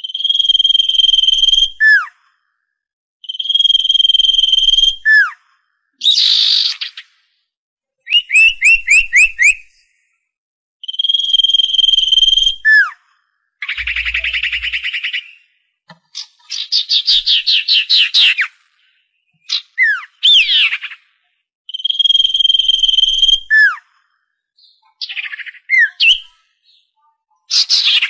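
Common iora song and calls: several long, steady whistles, each ending in a quick falling note, alternating with rapid trills and short chattering phrases.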